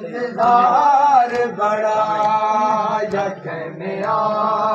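Male voice chanting a noha, a Shia mourning lament, unaccompanied, with long held notes between shorter bending phrases.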